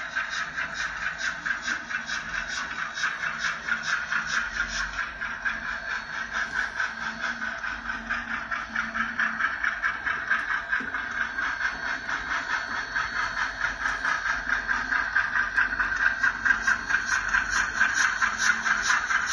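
Model steam locomotive's sound system chuffing in a steady rhythm, about four chuffs a second, as the engine runs along the track. It grows a little louder as it comes closer near the end.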